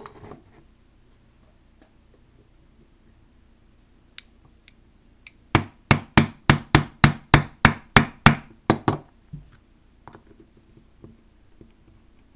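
A small screwdriver struck about fifteen times in quick succession, roughly four blows a second, its tip being driven through the thin aluminium top of a drink-can alcohol stove to punch the fuel filling hole.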